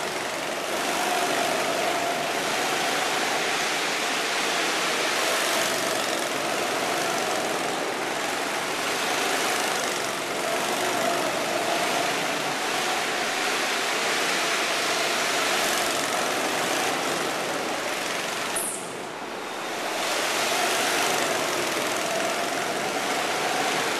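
Go-kart engines running as several karts lap the track, their note rising and falling as they accelerate and pass. The sound dips briefly about three-quarters of the way through.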